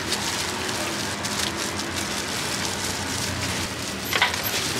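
Loose plastic food-prep gloves rustling as fruit is handled over a steady hiss of background noise, with a sharp knock about four seconds in.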